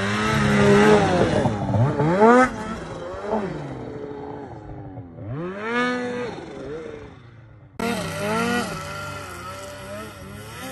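Snowmobile two-stroke engines revving hard and easing off again and again as sleds are ridden through deep powder, with rising and falling pitch on each throttle blip. The sound changes abruptly about three-quarters of the way in, where one riding clip cuts to the next.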